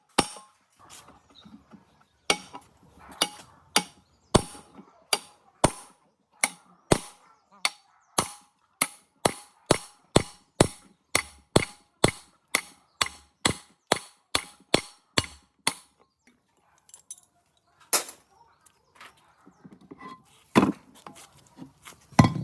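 Hand hammer striking steadily, sharp blows about two a second, stopping about fifteen seconds in; a few single, louder knocks follow near the end.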